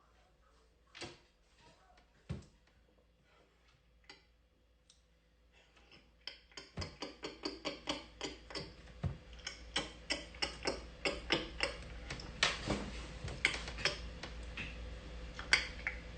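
A hip-hop beat playing faintly, mostly its ticking percussion. A few scattered clicks come first, and about six seconds in a regular pattern of about three ticks a second sets in and grows slightly louder.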